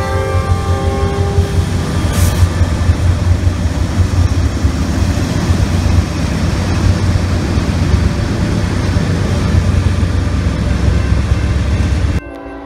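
Diesel-locomotive train passing at close range with a loud, steady heavy rumble. The tail of its horn fades out in the first second or so, and the rumble cuts off abruptly near the end.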